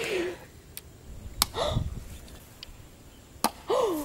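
Clods of wet mud thrown onto a mudflat, landing with a few sharp smacks and a dull thud; the loudest comes about a second and a half in. Short wordless voice exclamations, sliding in pitch, come at the start, midway and near the end.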